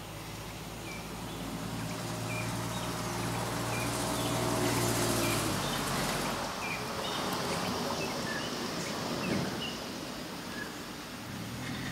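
Short, high chirping calls from a bird, repeated about one and a half times a second. Under them for the first half runs a low, steady mechanical hum that fades out about six seconds in.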